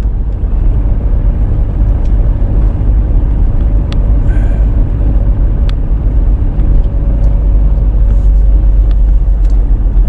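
Steady low rumble of a van driving, its engine and road noise heard from inside the cabin.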